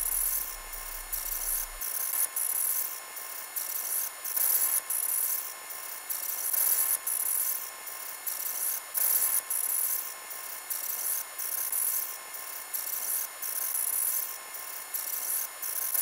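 Background music reduced to its high end: a steady rhythmic hiss, like shakers or hi-hats, pulsing about once or twice a second with no bass.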